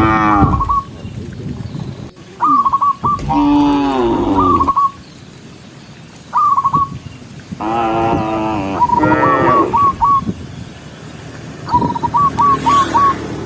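Cows mooing: several long, low calls, a few of them overlapping, with short high whistled notes, single or in quick runs of three to five, heard between and over them.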